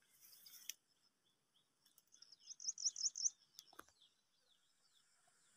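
A small bird singing: a run of short, high, falling chirps, with a quick burst of about five louder high notes around the middle, then a couple of clicks.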